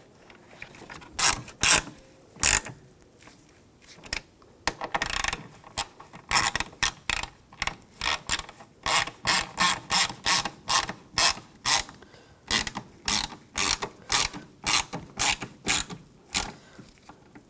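Ratchet wrench clicking as it tightens the door latch's two mounting bolts, a few strokes at first and then a steady run of about two clicks a second.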